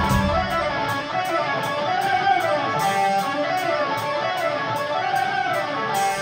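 Live rock band playing: electric guitar runs fast, rising-and-falling melodic lines over the band while the bass drops out, then the full band with bass comes back in near the end.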